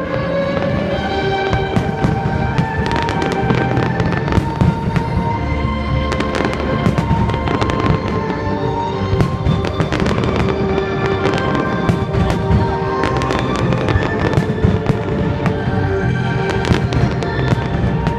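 Fireworks bursting and crackling in rapid, continual succession, over music with sustained notes.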